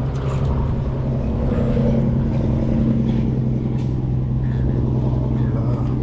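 A motor running steadily, a constant low hum over a rumble.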